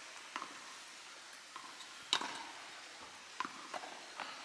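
Sharp, separate knocks of a tennis ball being struck and bouncing, the loudest about two seconds in and a quick run of lighter ones near the end.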